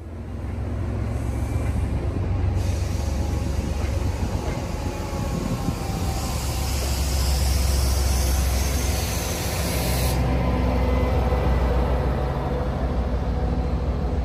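Diesel push-pull commuter train departing past the platform: a steady low rumble of coach wheels on rail and the HSP46 locomotive's diesel engine under load as it nears. A hiss of air runs for about four seconds in the middle and cuts off suddenly.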